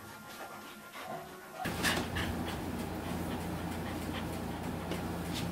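Rough collie panting. A steady low hum starts suddenly about one and a half seconds in.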